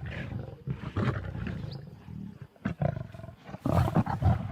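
Lions growling in short, irregular bursts as they squabble over a warthog carcass, the loudest outbursts coming near the end.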